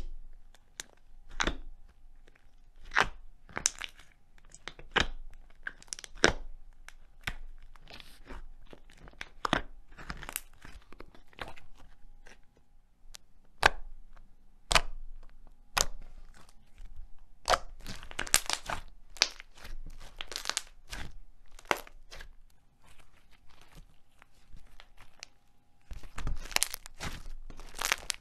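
Thick slime squeezed, folded and poked by hand, giving sharp, irregular pops and clicks. There are denser runs of crackling a little past the middle and again near the end.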